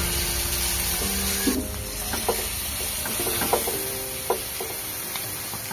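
Sizzling as liquid is poured into a hot wok of frying chicken and potatoes, loudest in the first second and a half. Then the sizzling eases, and a metal spoon stirs and scrapes against the wok a few times.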